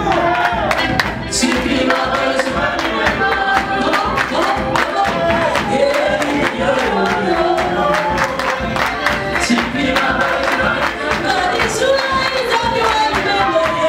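Gospel worship singing: a woman's voice sings through a handheld microphone over amplified music with a steady beat, with other voices singing along.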